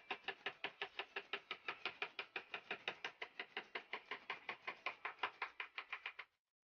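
Quick back-and-forth scratching strokes on wood, about five or six a second, as the wooden brace of the frame is rubbed down by hand; the strokes stop abruptly near the end.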